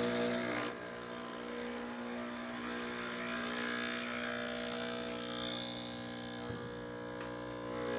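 Breville Barista Express espresso machine's vibratory pump humming steadily as the shot starts, in pre-infusion before any coffee flows. The hum drops slightly in level a little under a second in.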